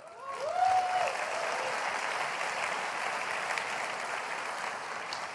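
Large audience applauding, building over the first second and then holding steady. One voice whoops near the start.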